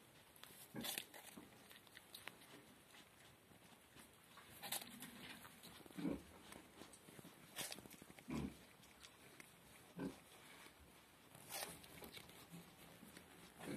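A nutria (coypu) biting into and chewing a whole apple close to the microphone: short crunches every second or two, irregularly spaced, with quieter chewing between them.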